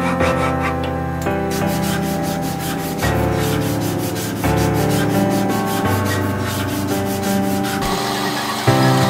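Hand sanding the edge of a small wooden piece: sandpaper rubbed back and forth in quick, even strokes, about five a second, with background music under it.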